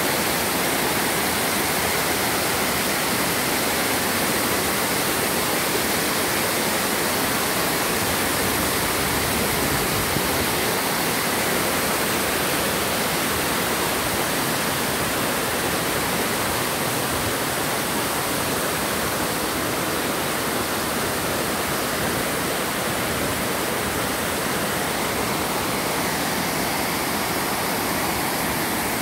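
Waterfall pouring over rock ledges into a pool: a steady, unbroken rush of water.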